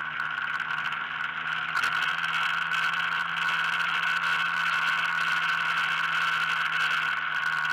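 Vehicle engine running steadily at road speed, heard on board with steady wind and road rush. It grows louder about two seconds in and stays there.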